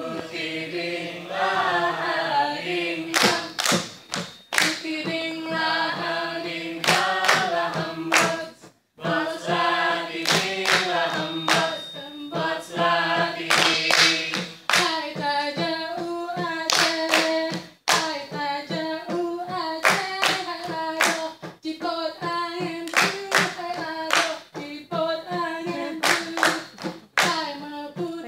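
Saman dance troupe singing together, unaccompanied, while clapping their hands in fast, tightly synchronised runs. Twice the singing and clapping break off for a moment before starting again.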